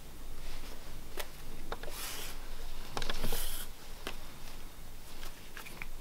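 Leather lacing being worked through a leather knife sheath by hand: soft rustling with a few small clicks and two short hissing scrapes as the lace is drawn through.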